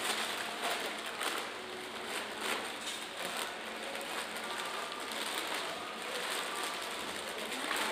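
Plastic and foil-lined grocery bags rustling and crinkling with irregular clicks and knocks as groceries are packed into them.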